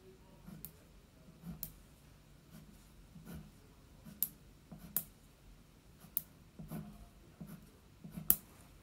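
Wax crayon writing on a paper card laid on a wooden table: a series of short, separate scratchy strokes as a character is drawn stroke by stroke.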